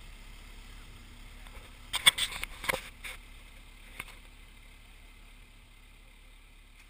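A short cluster of sharp knocks and clatters about two seconds in, and one more knock near four seconds, over a faint steady low hum.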